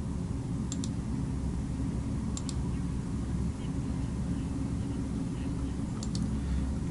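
Faint double clicks of a computer mouse, three times (about a second in, a third of the way through, and near the end), over a steady low hum.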